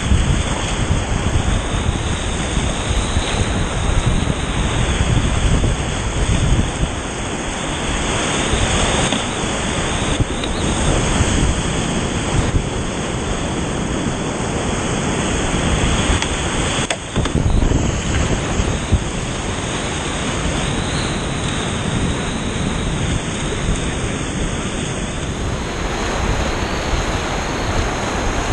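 River whitewater rushing and churning all around, a loud, steady roar of broken water heard from a boat running the rapids.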